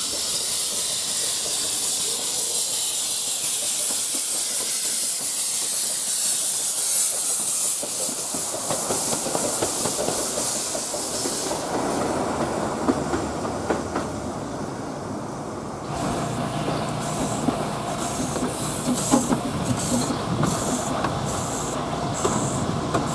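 Steam locomotive letting off a loud, steady hiss of steam, which stops about eleven seconds in and gives way to a lower rumble. After an abrupt change, a small Sir Arthur Heywood 0-4-0 tank engine gives a quick, regular series of short steam puffs.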